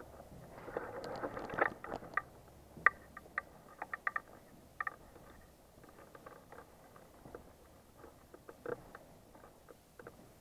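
Footsteps on a gritty, debris-strewn floor, with irregular sharp clicks and crunches and a brief rustle of clothing and gear in the first two seconds.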